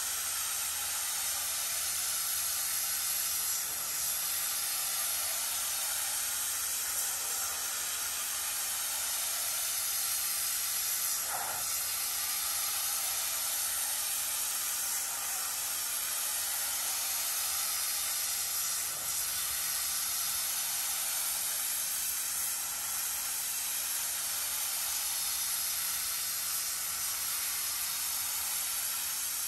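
Pressure washer wand spraying a high-pressure jet of water onto carpeted car floor mats: a steady hiss of spray.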